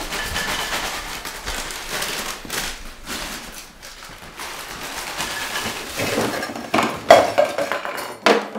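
Light knocks and footsteps on a tiled kitchen floor, then several sharp clattering knocks near the end as a kitchen bin is opened and a can falls onto the tile floor.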